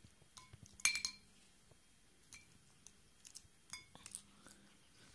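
A small glass bowl clinking as a Siamese cat eats a dried fish from it. The cat's mouth and the fish knock against the glass in short, ringing clinks, half a dozen or so, scattered and irregular, with the loudest about a second in.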